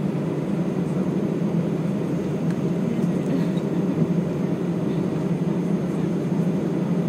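Steady deep rumble inside an Airbus A319's cabin as the airliner taxis on the ground, its jet engines running at low taxi power.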